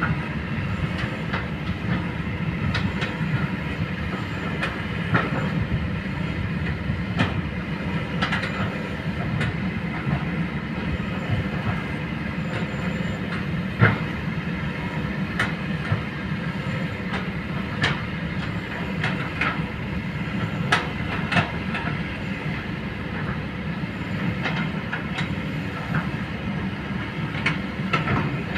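Kobelco hydraulic excavator's diesel engine running steadily under work, with irregular sharp metallic clanks and knocks from the machine working, one louder knock about halfway through.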